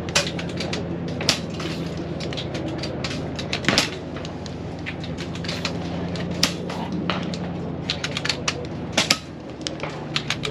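Air rifles firing on a benchrest firing line: a handful of louder sharp cracks at irregular intervals among many lighter clicks, over a steady low hum.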